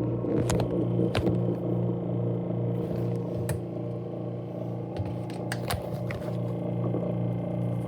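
InSinkErator garbage disposal motor running with a steady electric hum, with scattered sharp clicks and rattles from inside the grinding chamber.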